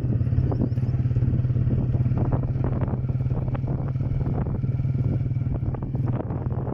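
Motorcycle engine running steadily while riding along a bumpy dirt track, with scattered knocks and rattles over the ruts.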